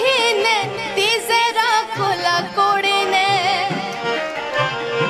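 A woman sings a Dogri folk song with a heavily ornamented, wavering melody. A harmonium and tabla accompany her.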